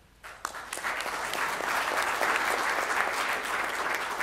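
Audience applauding: a few claps swell within about a second into steady applause.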